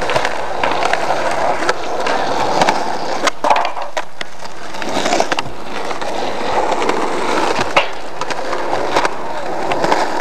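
Skateboard wheels rolling over rough concrete with a continuous grinding rumble, broken by sharp clacks of boards hitting the ground several times.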